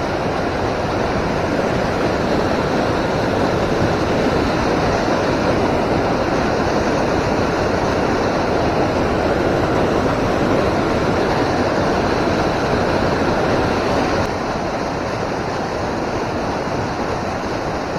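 Loud, steady rush of river current pouring over rocks, heard up close while wading; it eases slightly about fourteen seconds in.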